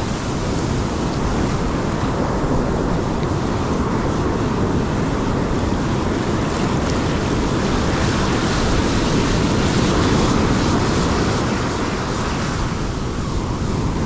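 Ocean surf washing in steadily, with wind buffeting the microphone.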